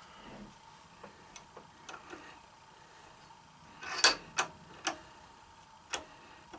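Scattered light clicks and knocks from an AR-15 rifle being handled and turned over in a bench vise with plastic soft jaws, the loudest a small cluster about four seconds in with a brief metallic ring, followed by a few single knocks.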